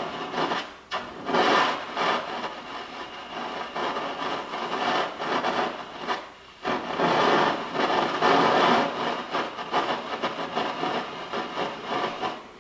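Breath blown through a mouth-fed propane blowpipe torch, its flame rushing as it heats a small piece of gold to melt it into a ball. The rush swells and eases in long waves, dipping briefly about a second in and again just past six seconds.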